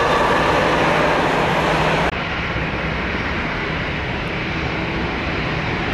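Jet engines of a Boeing 737-8 MAX climbing away after take-off: a broad roar with fading engine tones. About two seconds in it cuts abruptly to the slightly quieter, steadier roar of a Boeing 737-700's engines on approach to land.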